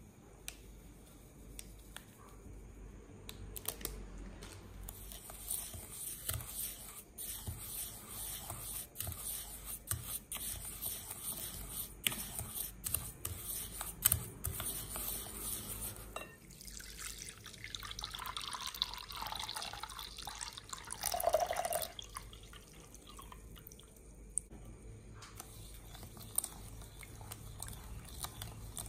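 A wooden spoon stirs dry sugar and agar powder in a glass bowl, with scraping and light clicks against the glass. Partway through, milk is poured in for about five seconds, a splashing pour that rises in pitch as the bowl fills. Then the milky mixture is stirred more quietly.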